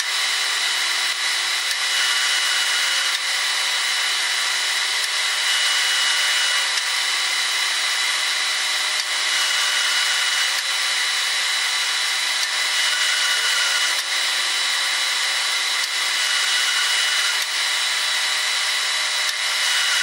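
Metal lathe turning a 40Kh steel bar between centres, the cutting tool working the spinning steel in a steady machining noise. A few thin high tones run steadily through it.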